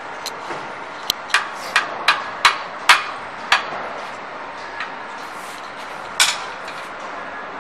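Sharp metal knocks and clanks from the steel frame and mold boxes of a chalk-making machine being fitted together by hand. A quick run of about seven knocks comes over two and a half seconds, then one more near the end.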